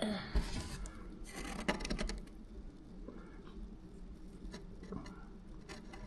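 Light handling noises: faint clicks, taps and rustles, busiest in the first two seconds, over a low steady hum.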